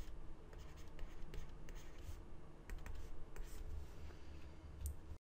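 Stylus writing by hand on a tablet: an uneven run of light ticks and short scratches over a low hum. It cuts off suddenly near the end.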